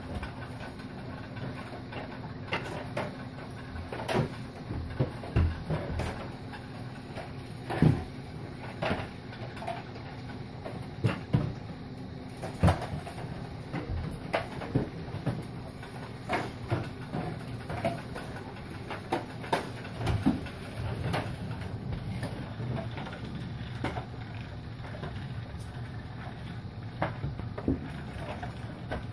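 Irregular light knocks and clicks, a few of them louder, over a steady low hum.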